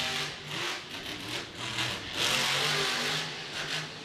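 Grave Digger monster truck's supercharged V8 engine running hard under varying throttle, its pitch rising and falling as the truck drives and jumps on the dirt.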